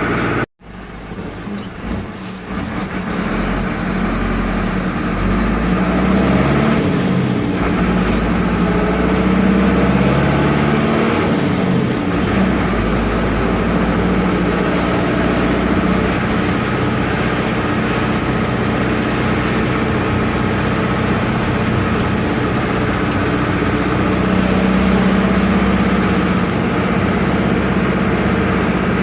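Air-cooled Deutz F4L912 four-cylinder diesel of an Otokar M-2000 minibus running under way, heard from the cab. After a brief dropout near the start, the engine note climbs in pitch and loudness over several seconds as the bus picks up speed, then runs steady.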